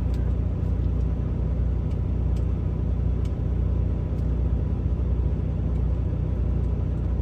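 Semi truck's diesel engine running steadily, heard from inside the cab as an even low rumble.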